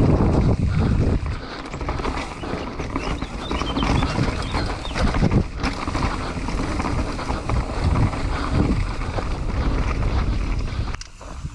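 Mountain bike running down a rough dirt trail: wind on the microphone, tyres on dirt and rock, and irregular knocks and rattles from the bike over bumps. The noise dips briefly near the end.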